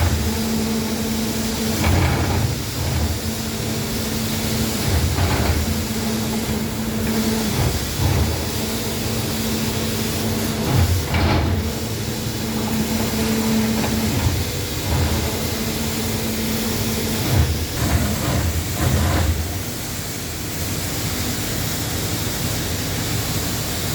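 Plasma cutting machine at work: a steady hiss with a hum that breaks off and starts again every couple of seconds, over irregular low thumps. The hum stops about three-quarters of the way through, while the hiss goes on.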